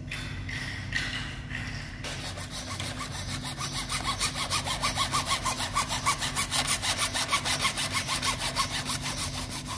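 A thin saw blade worked back and forth by hand, cutting through a small-diameter grey PVC drain pipe. Softer scraping at first, then from about two seconds in a steady, quick rhythm of even sawing strokes.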